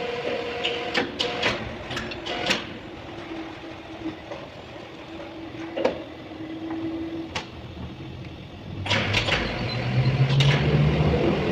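Metal clinks and knocks of tools and parts being handled while the compressor is being refitted, several in quick succession at first and a few single ones later. About nine seconds in, a louder low steady machine hum starts.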